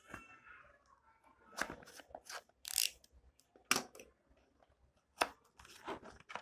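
Seal on a small cardboard earphone box being cut and broken open, with a handful of sharp clicks and short scraping rustles of the packaging.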